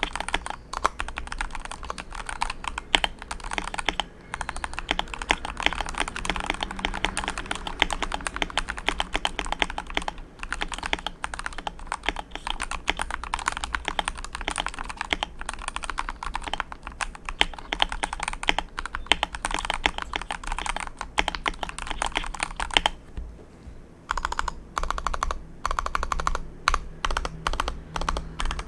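Continuous fast typing on a Vortex M0110 mechanical keyboard fitted with Gateron G Yellow Pro linear switches, a dense run of keystrokes. About 23 seconds in the typing stops briefly, then resumes as slower, separate keystrokes.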